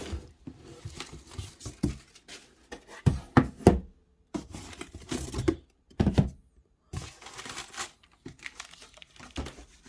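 Packaging being handled and rummaged through in an opened shipping box: irregular crinkling and rustling with occasional tearing, knocks and clicks, broken by brief pauses.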